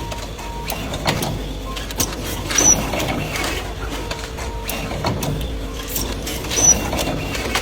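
Automatic tea bag filling, sealing and packing machine running: a steady hum under regular knocks about once a second, with a louder stroke about every four seconds, twice here.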